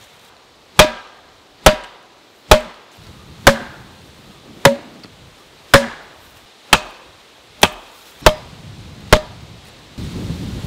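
Wooden stakes being pounded into the ground with a mallet: ten hard wooden knocks, each with a short ringing tone, about one a second.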